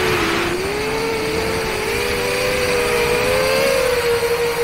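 FPV drone's motors and propellers whining steadily in flight, the pitch drifting slightly up and down with throttle.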